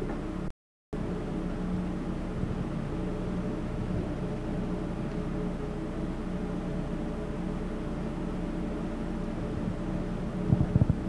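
Steady drone of a 40-horsepower DC motor driving the overhead line shaft and countershaft belting, with several fixed tones. The sound cuts out for a moment just under a second in, and a few sharp knocks come near the end.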